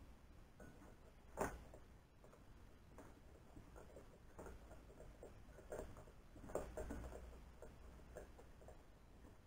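Scattered small clicks and light knocks of parts and tools being handled at a workbench. The sharpest click comes about a second and a half in, and a cluster of them about two-thirds of the way through.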